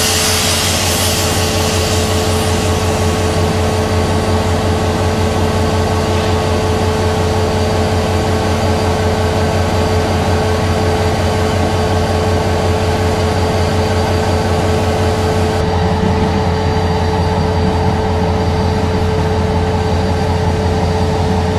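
Steam locomotive standing in steam: a hiss of escaping steam from around its cylinders that fades over the first couple of seconds, over a steady low drone with a constant whine that runs on throughout.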